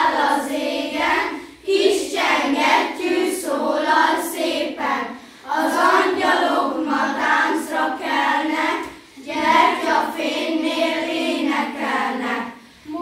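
A class of fourth-grade children singing a Christmas song together, in phrases of about three to four seconds with short breaks for breath between them.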